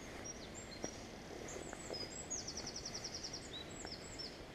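A small songbird singing: a run of short high notes, then a fast even trill of about a dozen notes in under a second, over a steady background hiss.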